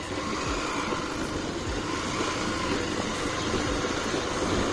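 Vehicle driving along a street: steady engine and road noise with a few soft low thuds.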